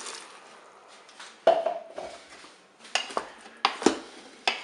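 A wooden spatula knocking and scraping against the Cookeo multicooker's inner bowl as diced vegetables are stirred: about six sharp knocks, the loudest about a second and a half in with a brief ring, after the tail of broth being poured in.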